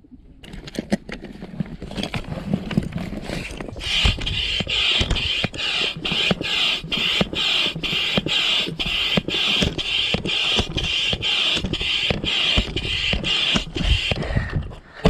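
Baitcasting reel being cranked steadily on a retrieve: a whirring that pulses about twice a second with the turns of the handle, starting about four seconds in and stopping near the end. The owner says the reel is getting dry and needs grease.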